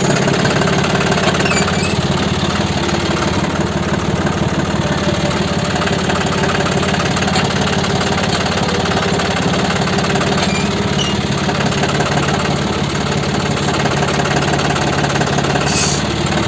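Diesel tractor engine running steadily with an even, unchanging note.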